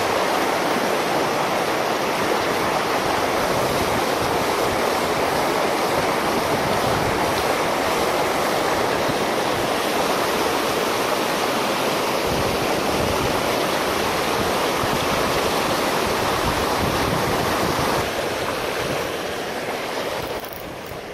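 Rapids on a river, the whitewater rushing in a loud, steady, even wash. It drops a little in level near the end.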